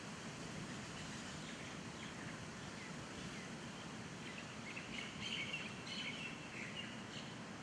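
Birds chirping, with a cluster of short high chirps from about five seconds in, over a steady hiss of outdoor background noise.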